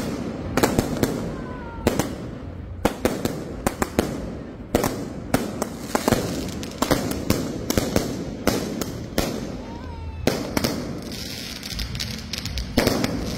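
Fireworks going off at street level: an irregular run of sharp bangs and cracks, often several a second.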